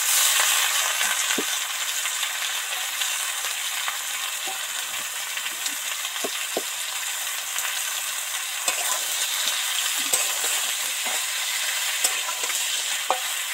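Hot oil in an iron kadai sizzling steadily around aubergine, potato and tomato pieces just added to fried onions, with scattered crackles. Near the end a spatula stirs the vegetables, knocking against the pan a few times.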